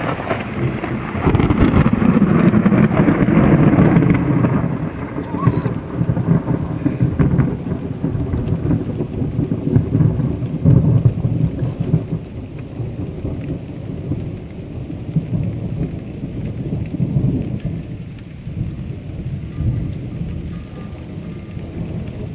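Thunder rolling in one long rumble that swells about a second in, is loudest for the next few seconds, then rumbles on with smaller surges and slowly dies away, over steady rain, picked up by a smartphone microphone.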